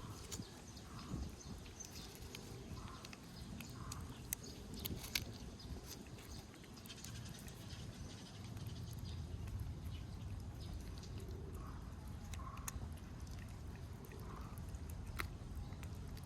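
A cat meowing in short calls, three in the first few seconds and three more in the second half, over a steady low rumble with scattered small clicks.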